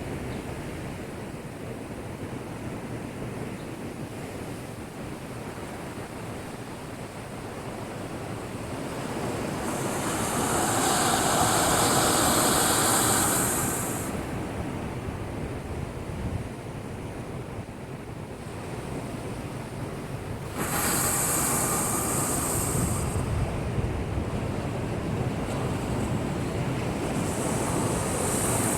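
Heavy surf from a typhoon swell breaking against a breakwater: a constant wash of waves that swells as a big wave breaks about ten seconds in, and jumps again when another hits suddenly about twenty-one seconds in.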